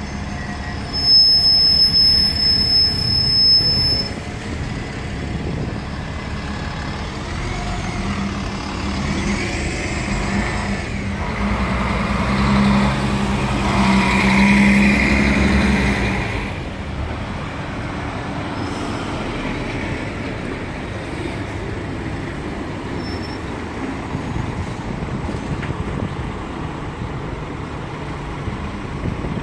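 City buses in street traffic: diesel bus engines running, with one passing close and growing loudest about halfway through before fading. Near the start there is a loud stretch of a few seconds with a high steady tone.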